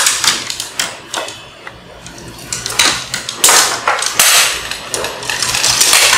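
Fiberglass tent frame poles with metal joints clattering and knocking against each other and a tile floor as they are handled and laid out: an uneven run of clicks and rattles, with a quieter lull about two seconds in.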